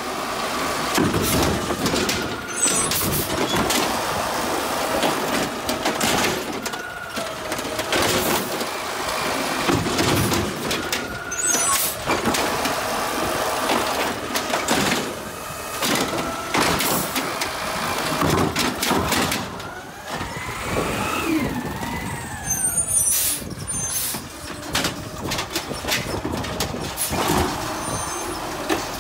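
Automated side-loader garbage truck emptying a wheeled trash cart: the hydraulic arm grips, lifts and tips the cart and sets it back down, with repeated clanks and bangs of the cart and its lid over the running truck, and a whine that rises and falls about two-thirds of the way through.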